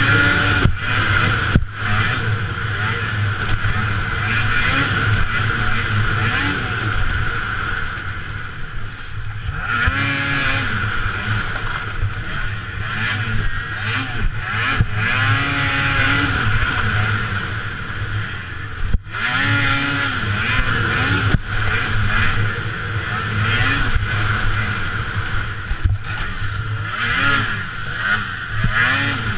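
Racing snowmobile's two-stroke engine heard from on board, revving up and down continuously as the sled is ridden around a snowcross track, with a few brief sharp dips in the engine note.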